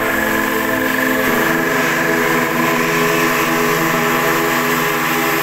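Background music: sustained, horn-like chords that shift to new pitches every few seconds.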